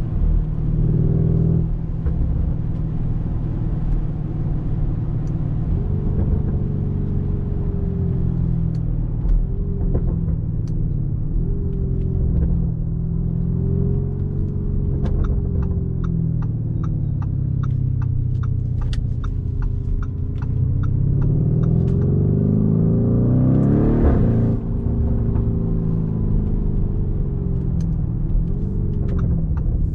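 Lamborghini Urus's twin-turbo V8 heard from inside the cabin, cruising with the revs wandering, then rising in pitch under acceleration about three-quarters of the way through before falling back sharply. A regular light ticking runs through the second half.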